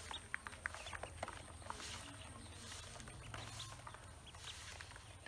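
A small flock of ducklings in a plastic basin, making short peeps and tapping their bills as they peck at feed, many quick sounds overlapping.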